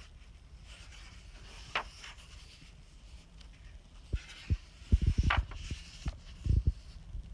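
Paper sketchbook pages turned by hand: two papery swishes, about a second in and again about four seconds in, with several soft low thumps of handling in the second half.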